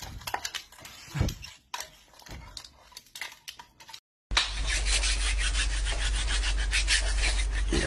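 Faint scattered rustles and knocks as a cardboard box is handled on carpet. After a short gap about four seconds in, a much louder steady crackling hiss over a low hum sets in suddenly.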